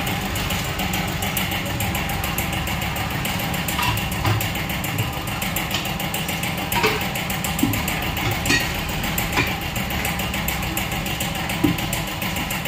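A steady engine-like machine hum, with a few sharp clicks and knocks from a tyre being worked on a tyre-changer machine.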